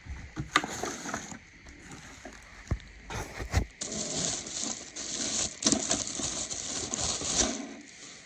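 Rustling and scraping of packaging, with a few sharp knocks, as a robotic pool vacuum is unpacked from its box. The crackly rustle is loudest in the second half and dies away near the end.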